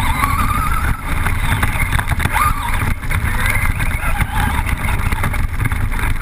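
Traxxas Rustler VXL RC truck's brushless electric motor whining, rising and falling in pitch as the truck accelerates and slows across dirt, heard from on board over a heavy rumble of wind and ground noise.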